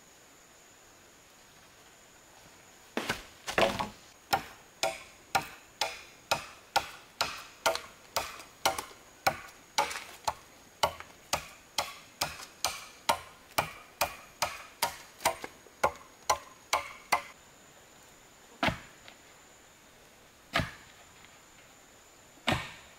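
Chopping blows into wood with a blade, a run of some thirty sharp strikes at about two a second, then three single strikes about two seconds apart near the end.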